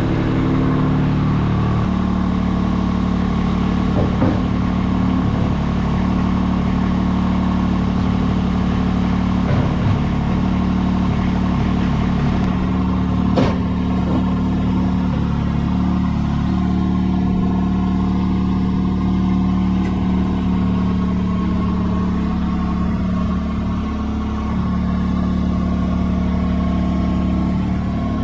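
Vermeer S650TX mini skid steer's engine running at a steady speed while its loader arms work the attached brush cutter. There is one sharp click about halfway through.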